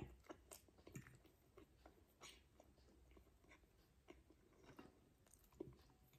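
Faint chewing of a mouthful of spaghetti: soft, irregular mouth clicks and smacks, very quiet.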